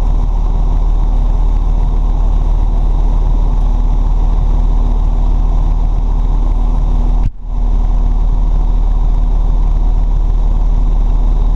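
Diesel engine of a fire apparatus idling steadily, heard from inside the cab while the truck stands still. The sound cuts out for a moment about seven seconds in.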